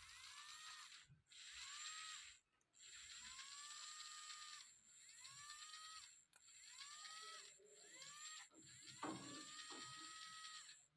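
Faint whir of a toy car's small electric motor and gears, run in about six short bursts of one to two seconds with brief pauses; in each burst the whine rises as the motor spins up and then drops as it slows.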